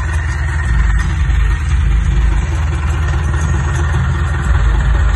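Diesel engine of a modified Hindustan tractor running steadily at low revs, a deep, even engine sound with no clear change in pace.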